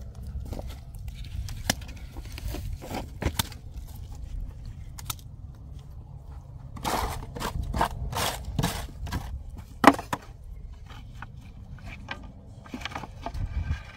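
Scattered sharp knocks and clatter, like wood or tools being handled, over a steady low rumble. The knocks come in a cluster around the middle, with a single louder knock near the end.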